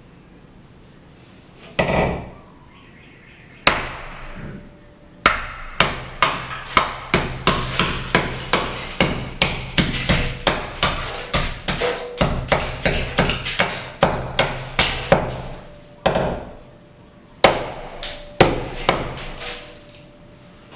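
Ball-peen hammer striking a glass block and breaking it apart, glass cracking and crunching with each blow. Two single blows, then a rapid run of blows at about three a second for around ten seconds, then a few more spaced blows.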